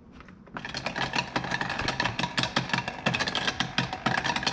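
Battery-operated toy blender running with a steady whirring rattle, starting about half a second in.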